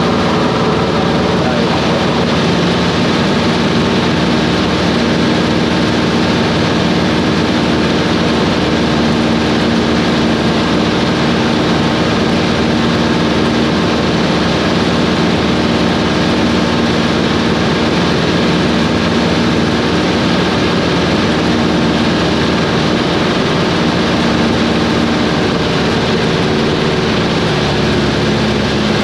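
Cessna 140's engine and propeller running steadily, with a slight drop in the engine note near the end.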